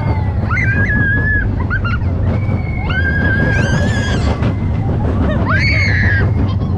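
Riders on a small roller coaster screaming: several long, high screams of about a second each, some rising at the start, over a steady low rumble of the ride.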